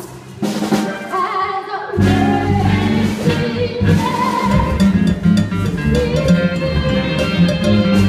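A female lead singing a musical-theatre number over a band accompaniment with drums, heard from the audience in the auditorium. The full accompaniment with bass and drums comes in about two seconds in.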